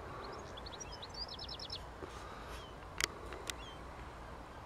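Small songbirds singing over a faint steady outdoor background. A quick trill of about five repeated high notes comes about a second and a half in, with single chirps after it. Two sharp clicks sound close together around three seconds in.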